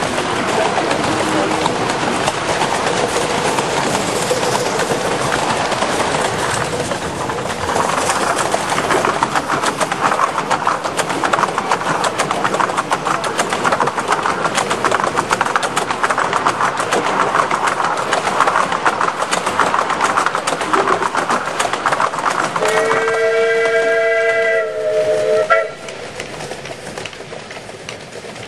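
A 7¼-inch-gauge miniature steam train running past, its wheels clattering on the track. Near the end the locomotive's whistle sounds a chord of several notes for about three seconds and cuts off sharply, after which the running sound falls away.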